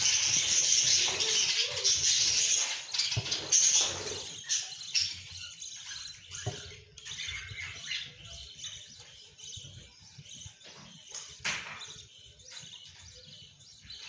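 Budgerigars in a nest box: high cheeping and rustling from the hen and her newly hatched chicks, loud over the first four seconds, then fainter and broken up.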